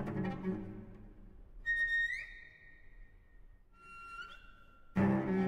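Solo cello playing thin, high harmonic tones, each sliding upward in pitch partway through, after a low bowed note dies away. Near the end a loud, full low bowed note comes in.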